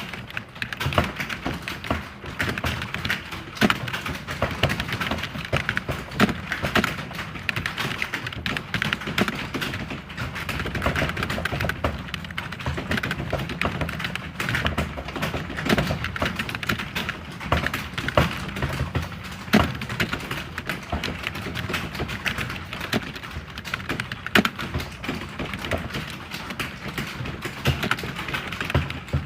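Computer keyboard typing: a fast, continuous run of key clicks with no pauses.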